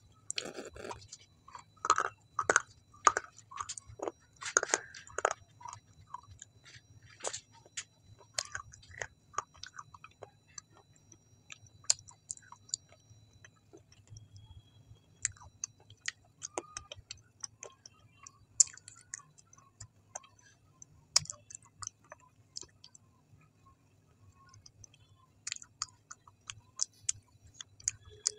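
Close-miked chewing: wet, sticky mouth clicks and smacks. They come thick and fast for the first few seconds, thin out through the middle, and pick up again near the end.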